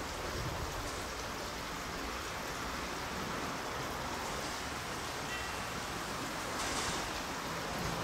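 Steady rushing outdoor background noise with no distinct mechanical sound, with a faint short high tone about five seconds in and a brief louder swell of hiss near seven seconds.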